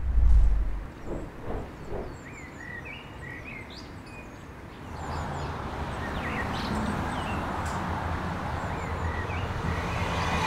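Birds chirping over outdoor background noise. A low thump comes right at the start and a few knocks follow in the first two seconds. About halfway through, the background noise grows louder.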